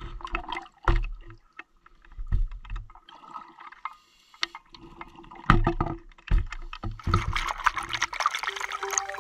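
A scuba diver's exhaled bubbles gurgling from the regulator, heard underwater, with irregular low knocks. A long, dense stream of bubbling starts about seven seconds in.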